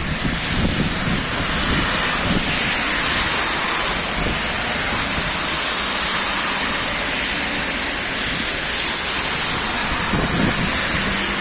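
Hail and rain falling heavily: a dense, steady hiss.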